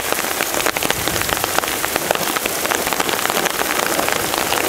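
Heavy rain coming down steadily, a dense patter of many separate drops striking.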